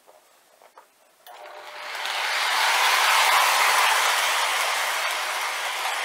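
Williams O-gauge F-3 diesel model locomotive moving off from a standstill. A few faint clicks, then about a second in its motor, gear drive and wheels on the track start up, rising over about a second to a steady mechanical running noise.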